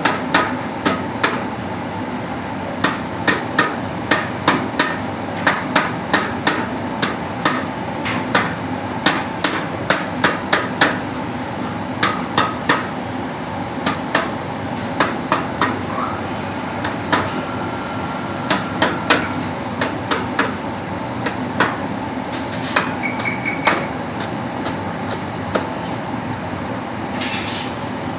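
Hammer tapping a sleeve onto the end of a Cummins engine's crankshaft: sharp strikes at an irregular pace, about one or two a second with short pauses, over a steady background hum.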